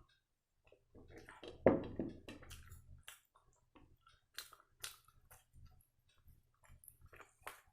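Close-miked eating of sambar vada: wet chewing and mouth sounds, with a louder burst about a second and a half in, then scattered short sharp clicks.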